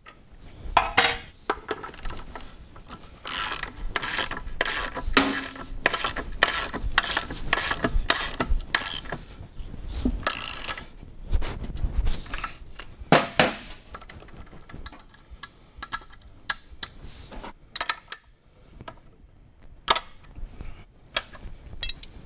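Ratchet wrench clicking in quick runs on a motorcycle's rear axle during drive chain adjustment, with metal tools clinking. The clicking is dense through the first half or more, then thins to scattered clicks and clinks.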